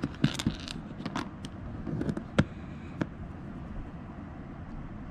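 Small metal oil pump parts (gear, drive pin and rotor) handled and fitted together by hand, giving a scatter of light clicks and taps in the first three seconds, over a steady low hum.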